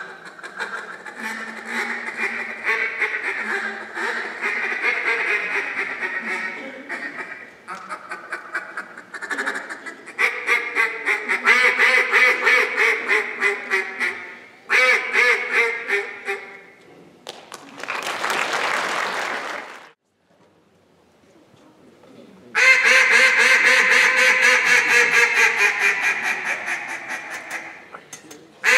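Hand-held duck calls blown in competition, mimicking a live duck: strings of quacks, some drawn out and some in fast chattering runs. About 17 seconds in comes a short burst of applause, then a brief pause. At about 22 seconds a second caller starts a loud, dense run of quacks that tails off near the end.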